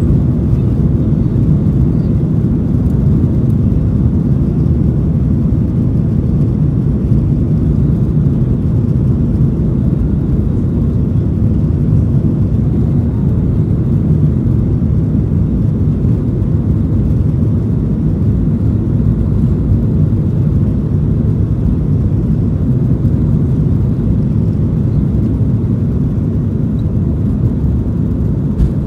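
Cabin noise of a Boeing 737-900ER taxiing, heard inside near the wing: a steady low rumble from its two CFM56-7B engines at taxi power and the wheels rolling over the taxiway.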